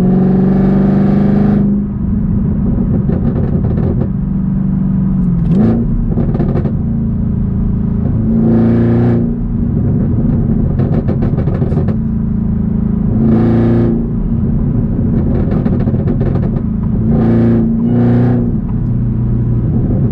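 2022 Camaro ZL1's supercharged 6.2-litre V8 and H-pipe cat-back exhaust heard from inside the cabin while driving at highway speed. Just after a downshift the engine note starts high, drops back after about two seconds, then runs steady with three or four short swells of louder exhaust sound a few seconds apart.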